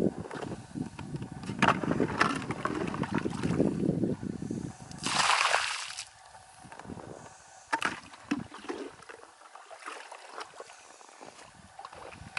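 Water being poured from a plastic jug into a plastic bucket, sloshing and gurgling for about five seconds, with a short splash at about five seconds. After that it goes quieter, with scattered knocks from the bucket being handled.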